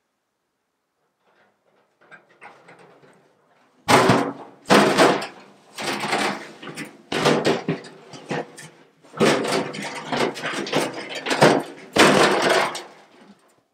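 Rusty steel drum coming down onto the ground about four seconds in, then rumbling and rattling in loud, irregular surges as it is rolled across the grass.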